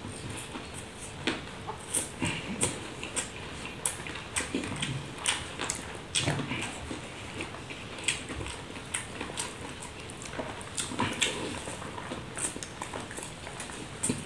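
Close chewing and lip-smacking of a person eating rice by hand. Fingers squish and scrape rice against a banana leaf, giving irregular short clicks and smacks.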